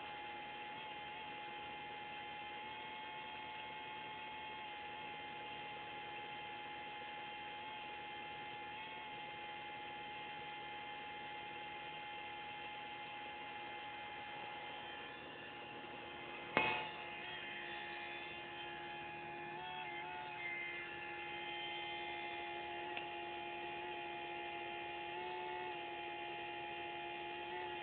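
Bosch 044 fuel pump drawing from a swirl pot, running with a steady whine. About two-thirds of the way through there is a sharp click, after which the whine changes pitch, with a lower tone joining in and wavering at times. This is the unexplained alternating pitch change, which the owner finds does not follow the pump's power supply or the air-fuel ratio.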